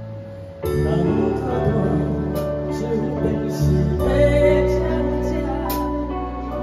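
Music with instruments and some singing; a new phrase comes in loudly about half a second in, and deeper bass notes enter partway through.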